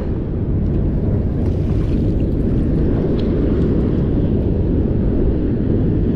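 Steady low rumble of wind buffeting the microphone at the water's edge, with faint splashes and drips as a cast net is hauled up out of the river.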